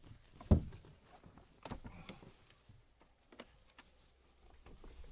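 A dog being let out of a car: a loud thump about half a second in, then scattered lighter knocks and scuffles.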